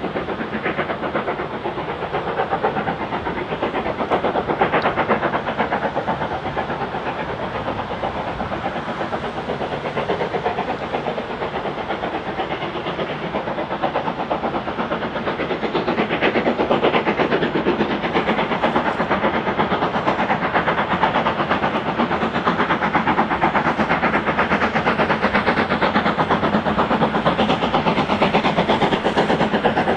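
Victorian Railways Y class 0-6-0 steam locomotive Y112 working hard up a steep grade, its exhaust beating in a quick, even chuff with a hiss of steam. It grows louder from about halfway as it comes closer.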